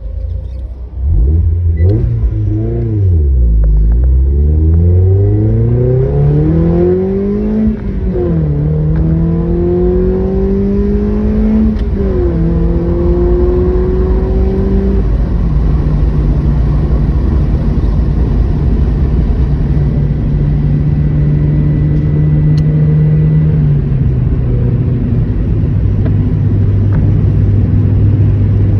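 Car engine pulling away and accelerating through the gears: its pitch climbs, drops sharply at each of several gear changes, then settles and holds steady at a cruise, stepping down twice more.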